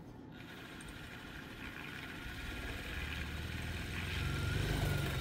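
Vortex Stirrer Turbo paint mixer's motor starting up and spinning a bottle of separated paint to blend it: a steady whirring hum that grows louder as it is turned up, with a deeper hum joining about three seconds in.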